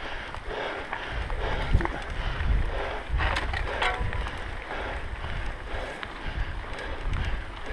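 Mountain bike ridden up a dirt trail, heard from a rider-mounted camera: wind buffeting the microphone and the rumble of tyres and frame over the dirt, with a few rattles and clicks from the bike over bumps. The rider's heavy breathing comes in puffs about once a second, from the effort of the climb.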